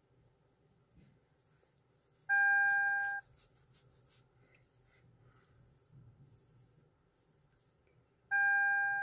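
An electronic chime: a steady beep, held just under a second, sounds twice about six seconds apart.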